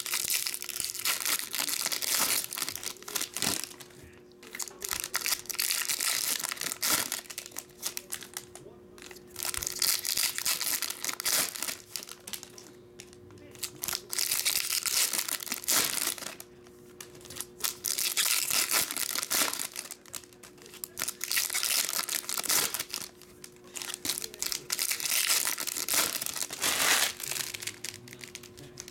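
Foil trading-card pack wrappers crinkling and tearing as packs are ripped open and handled, in repeated bouts of a few seconds with short pauses between.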